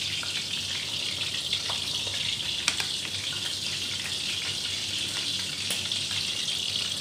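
Battered squid rings deep-frying in a wok of hot oil: a steady sizzle with a few sharp pops.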